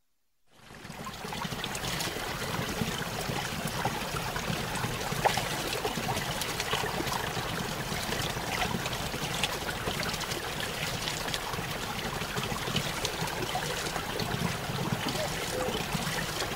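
Running water trickling steadily, fading in during the first second or two.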